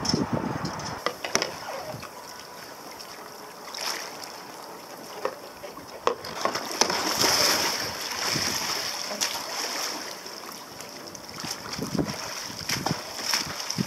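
Choppy water lapping and splashing close to the microphone, with irregular splashes from a paddler in the water scrambling onto a capsized sea kayak. The sound is loudest about halfway through.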